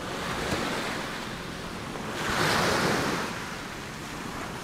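Small waves washing onto a sandy beach, one wash swelling louder about two seconds in and then falling back, with wind on the microphone.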